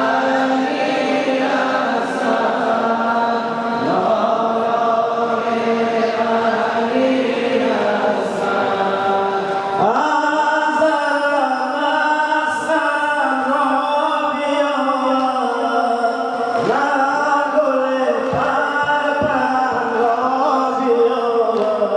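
Several male voices chanting an Afghan noha, a Shia mourning lament, in unison through microphones, in long held sung lines.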